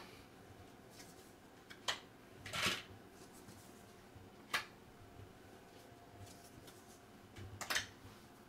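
Wingspan bonus cards being dealt onto a tabletop: a handful of soft card slaps and short slides, spread out with quiet stretches between.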